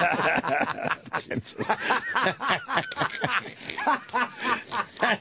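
Men laughing and chuckling in short, repeated bursts, with several voices overlapping at first.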